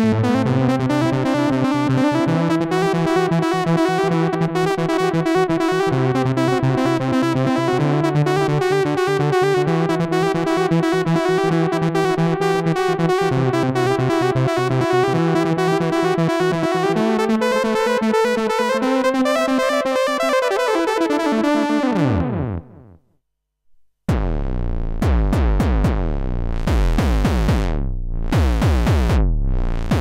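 Arturia MatrixBrute analog synthesizer played from its keyboard: a thick, sustained patch with a fast pulsing texture and shifting notes, which fades out about three-quarters of the way through. After a second of silence a new patch starts, with deep bass notes and repeated sweeping, wah-like tones.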